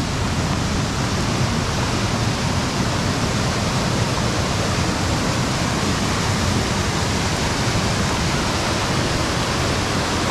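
Waterfall or fast mountain stream: a loud, steady rush of falling water that does not let up.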